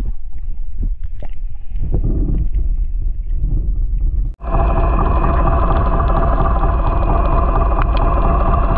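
Underwater recording: a muffled low rumble of moving water with scattered clicks. After a sudden break about four seconds in, a steady droning hum with several level tones takes over, a boat engine heard through the water.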